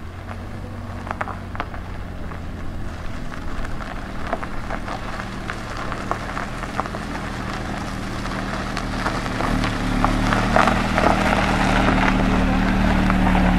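Mercedes-Benz CLA's four-cylinder engine running at low speed as the car creeps over loose gravel, with the tyres crackling on the stones. The sound grows steadily louder as the car comes closer.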